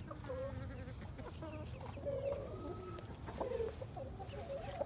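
Chickens clucking: a string of short, soft clucks with a couple of longer calls near the middle.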